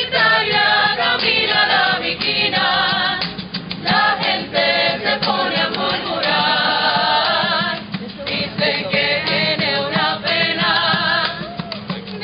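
An estudiantina, a student rondalla, singing together in chorus with wavering, vibrato-laden voices while guitars strum along.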